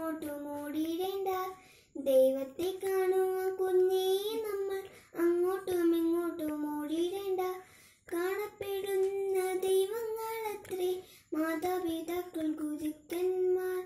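A boy singing a Malayalam children's song solo and unaccompanied, in held notes sung in phrases of two or three seconds with short breaks for breath.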